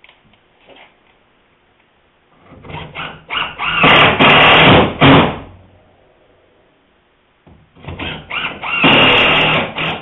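Cordless driver running in two stop-start runs of about three seconds each, driving screws through a wooden rail into the hull.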